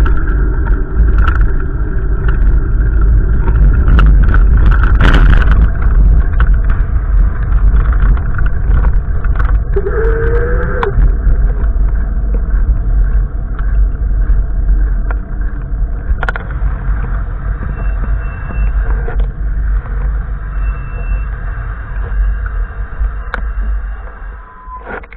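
Gusty wind buffeting the microphone, a loud, uneven rumble that eases off near the end.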